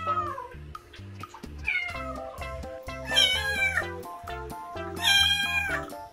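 A young kitten meowing about four times, each call falling in pitch; the last two are louder and longer. Background music plays throughout.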